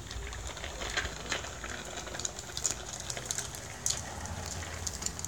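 Child's bicycle with plastic training wheels rolling over cracked concrete: irregular rattles and clicks over a low rumbling haze.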